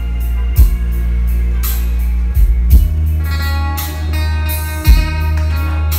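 Recorded music with guitar and a heavy, sustained bass line, played through a home karaoke system with a Martin Bass 30 powered subwoofer running. The bass note shifts about halfway through, with a sharp drum hit roughly every two seconds.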